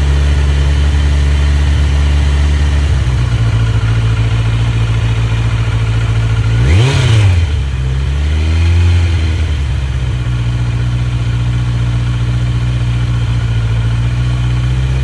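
2023 Kawasaki Z900's inline-four engine breathing through an Akrapovic slip-on exhaust, idling steadily. About halfway through it is blipped once sharply, then given a smaller, softer rev before settling back to idle.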